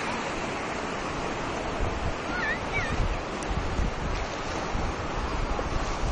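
Sea waves breaking and washing through shallow surf, with wind rumbling on the microphone from about two seconds in.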